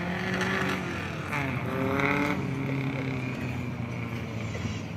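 Off-road competition vehicle's engine revving, its pitch rising and falling several times.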